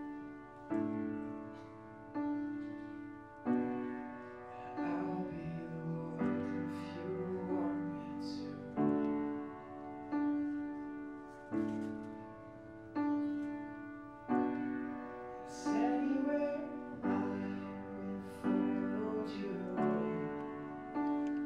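Piano playing slow, sustained chords, a new chord struck about every second and a half, with a voice singing softly over it in places.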